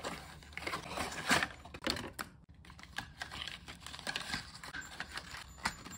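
Cardboard toy packaging being opened by hand and a small plastic doll's crib lifted out of its card insert: irregular clicks, taps and rustling of card and plastic.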